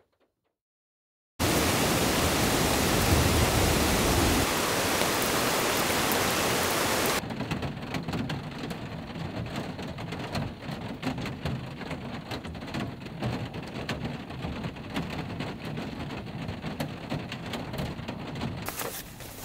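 Heavy rain that starts abruptly after about a second and a half of silence, loud and hissing. About seven seconds in it changes to a quieter, muffled patter of rain with scattered drop taps, as heard from inside a camper van.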